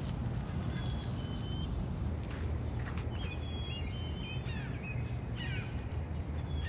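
Small birds chirping in short, high whistled notes and a few quick falling calls, with a fast high trill in the first couple of seconds, over a steady low rumble.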